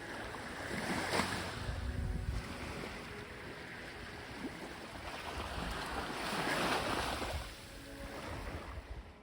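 Mediterranean waves breaking and washing up a beach, two swells of surf, the larger one a little past the middle.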